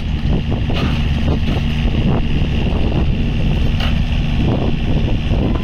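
Yanmar VIO50-6A mini excavator's diesel engine running steadily while the arm and bucket work, with a steady high whine over it. Two short clanks, about a second in and near four seconds in.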